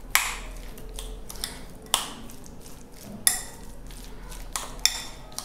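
Metal spoon stirring and mashing a boiled-potato and onion mixture in a glass bowl: soft squishing and scraping, with four sharp clinks of the spoon against the glass.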